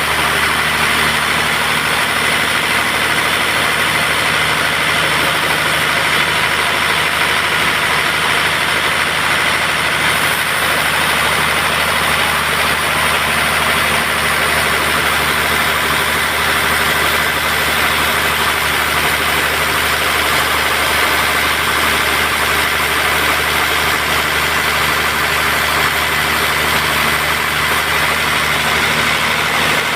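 Band sawmill running steadily: a constant machine drone made up of several fixed tones, with no change in speed or pitch.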